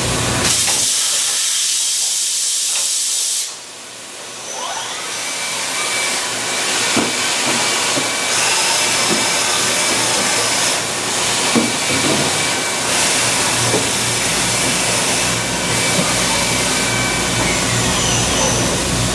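OKK VM7III CNC vertical machining center running under power: a loud, steady hiss, with a steady high whine through the middle. The sound drops briefly about three and a half seconds in and then builds back up.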